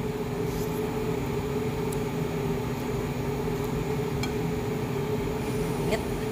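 Steady machine hum with a fixed low tone, with a few faint clinks of a utensil against a ceramic bowl.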